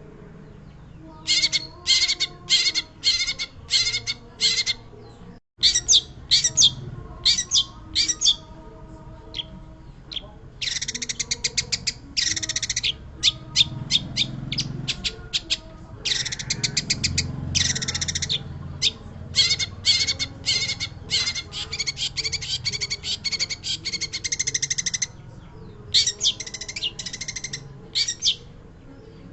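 Long-tailed shrike (pentet) singing vigorously: long runs of quick, harsh chattering notes, some strung into fast rattles, broken by short pauses.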